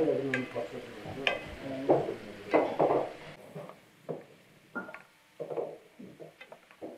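A spatula stirring strips of bell pepper frying in a wide metal pan. It makes irregular scrapes, clinks and knocks against the pan over a light sizzle, busier in the first half and sparser after.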